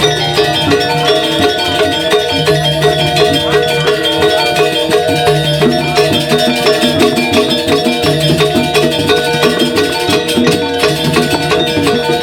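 Balinese gamelan playing dance accompaniment: bronze metallophones in fast, dense strikes, with drums and low gong-like tones coming and going.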